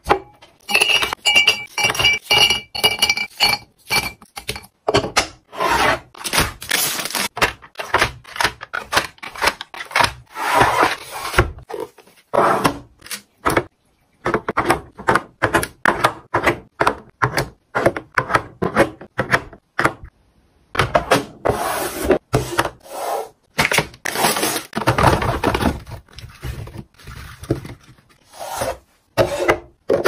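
Close-up handling of food storage containers: a glass jar and its bamboo lid clinking and knocking, eggs tapped down into a clear plastic egg tray, and plastic containers clacking. It comes as a quick run of short taps and knocks with rustling between, and a faint ringing in the first few seconds.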